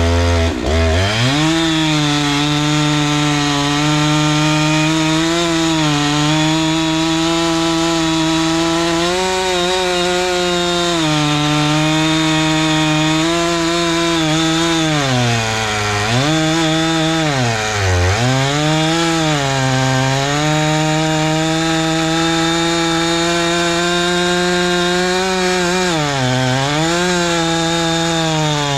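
Husqvarna 390XP two-stroke chainsaw running at full throttle with a 3-foot bar, cutting through a large willow trunk. The engine speed drops and recovers about three times, near the start, a little past halfway and near the end, as the chain bogs in the cut.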